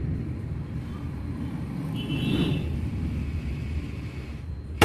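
A steady low rumble of background noise, with one sharp click near the end.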